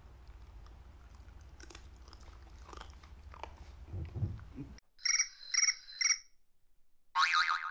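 A corgi faintly chewing and licking up crumbs of fried sweet potato. Then the room sound cuts out for an added comic sound effect: three short identical squeaky toots about half a second apart, and near the end a louder buzzy cartoon sound.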